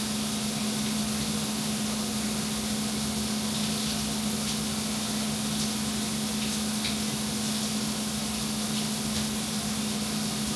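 Shower running: water spraying steadily from the showerhead and splashing on a person inside a small glass-door shower stall, with a steady low hum underneath.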